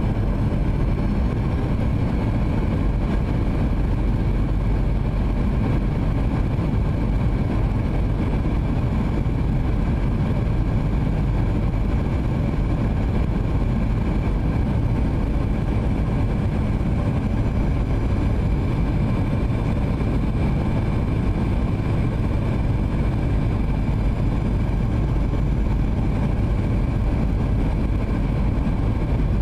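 Steady cabin noise inside a Boeing 737-800 on approach: a low rumble from its CFM56-7B turbofan engines and the airflow past the fuselage, with a faint steady whine over it.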